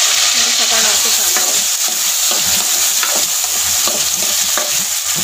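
Chopped tomatoes sizzling in hot oil in a karahi, just added to browned garlic, with a spatula scraping and stirring them through the pan in short strokes.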